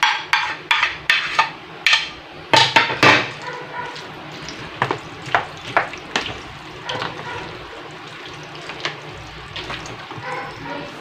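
A spoon knocking and scraping cheese cubes off a plastic plate, a sharp tick about every half second for the first three seconds. Then the creamy macaroni fruit salad being stirred in a plastic tub: soft wet crackling with scattered clicks.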